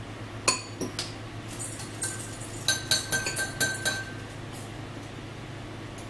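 Metal spoon clinking against a drinking glass while stirring a drink: two sharp clicks about half a second in, then a quick run of clinks with a ringing note between about two and four seconds in. A steady low hum runs underneath.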